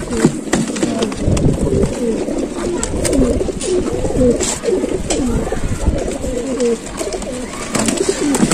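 Many domestic pigeons cooing together: short, overlapping coos that go on without a break, with a few light knocks and clicks mixed in.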